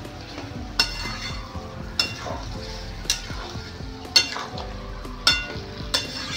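Spatula stirring jackfruit curry in a large metal kadhai, striking the pan with a sharp ringing clang about once a second. Under it runs the steady sizzle of the gravy, with hot water just stirred in.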